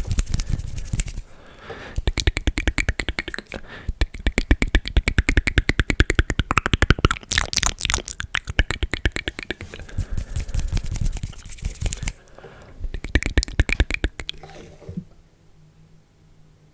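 ASMR mouth sounds made close to the microphone: fast runs of tongue and lip clicks, many a second, after a short low rumble at the start. The clicks thin out and die away near the end.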